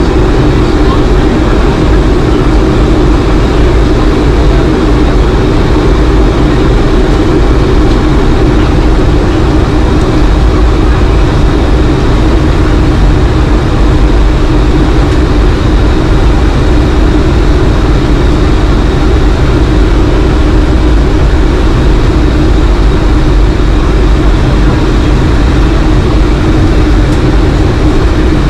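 Steady cabin noise of a Boeing 757-200 in cruise, heard inside the cabin: the rush of air past the fuselage and the hum of its Rolls-Royce RB211-535E4 engines, unchanging throughout, with a faint thin whine on top.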